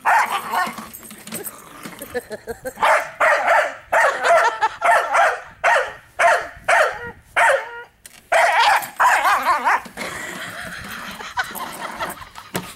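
A dog barking over and over at a push lawn mower, about a dozen sharp barks in quick succession, stopping about ten seconds in.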